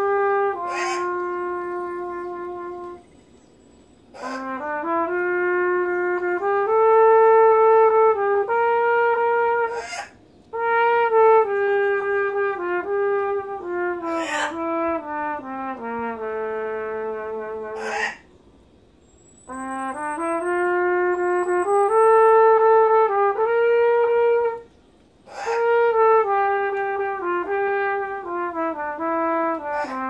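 Solo trumpet playing a melody of held notes that step up and down, in phrases several seconds long with short pauses for breath between them.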